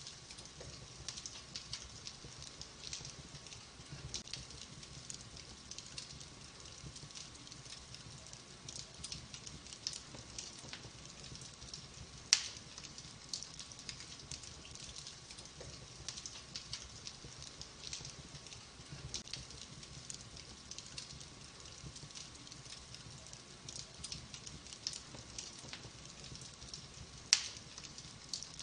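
Wood fire crackling in a fireplace: a steady stream of small crackles and snaps, with two louder pops, about twelve seconds in and again near the end.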